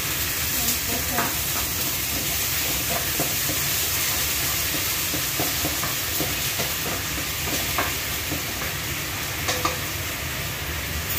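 Food frying in a pan over a gas flame, sizzling steadily, while a spatula stirs it with scattered short scrapes and taps against the pan.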